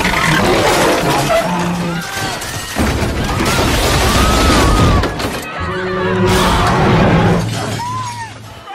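Dubbed-over train-crash sound effects: continuous loud crashing and shattering under music, with several short rising-and-falling wails, dying down near the end.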